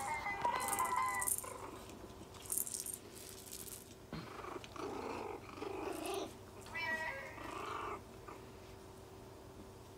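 Tiny Chihuahua puppies, under five weeks old, growling and squealing as they wrestle in play. There is a squeal at the start and another about seven seconds in, with low grumbling growls between.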